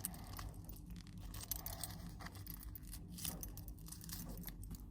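Faint, irregular light clinking and clicking of a small metal necklace chain and pendant being handled.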